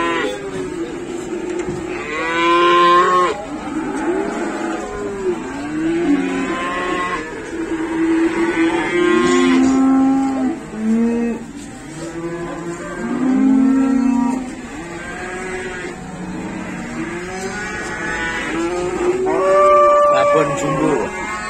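Many cows mooing over one another, one call after another with hardly a gap, several of them long, high calls.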